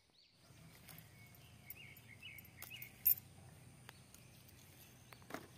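Birds chirping, with a faint steady high insect-like tone, and a sharp click about three seconds in.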